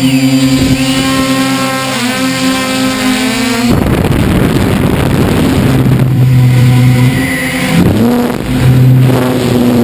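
Multirotor drone's electric motors and propellers whining, heard from the camera on board; the pitches shift up and down together as it manoeuvres. From about four seconds in a loud rushing noise joins them.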